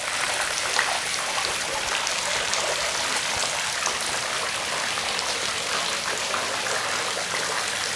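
Water splashing and trickling steadily into a swimming pool.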